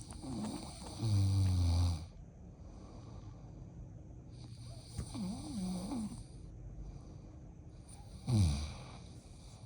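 A man snoring: a long, loud snore about a second in, softer wavering sounds in the middle, and a short snore dropping in pitch near the end.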